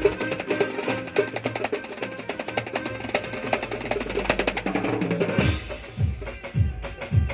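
Drums played in a fast, dense rhythm of rapid strokes. About five seconds in, deep booming beats come back in, roughly two to three a second.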